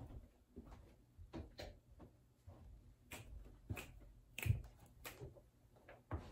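Faint, irregular soft knocks, taps and rustling of a person moving about and sitting down in a desk chair, with a louder thump about halfway through.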